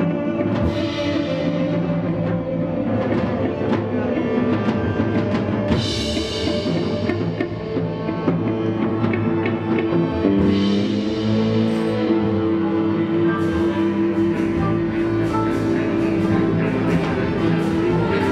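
Live ensemble music in an experimental orchestral style: sustained pitched instruments layered over frequent percussive hits, with bright swells about a second in, around six seconds and around eleven seconds.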